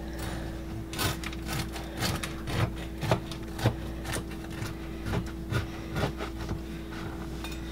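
Knife sawing back and forth through a cheese-and-bacon-crusted loaf of quick bread on a wooden cutting board: a run of short scraping strokes, about two a second, that stops shortly before the end.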